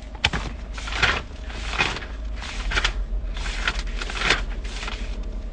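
Sheets of paper rustling as handwritten note pages are handled and flipped close to a phone's microphone: a string of quick, irregular swishes, about one a second.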